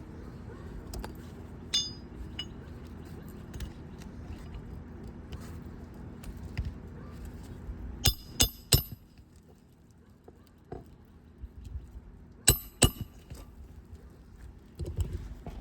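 Hammer driving roofing nails into a new shingle: three sharp, ringing metal strikes in quick succession about eight seconds in, then two more about four seconds later, with a lighter tap early on.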